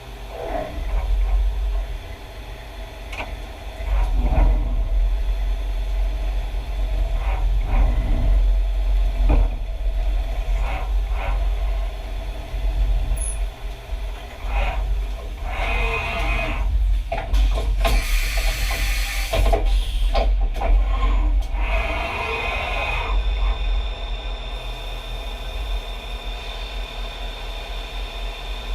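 Hurco BMC 2416 CNC machining center milling a steel slab: a steady low hum and steady machine tones, with irregular louder cutting passages between about 15 and 23 seconds in and a loud hiss around the middle of that stretch.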